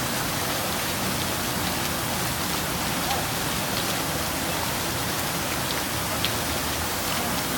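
Steady hiss of falling water, even and unbroken, with a few faint ticks.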